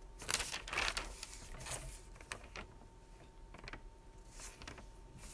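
Faint, irregular rustling and light clicks of things being handled at close range, with a thin steady tone underneath.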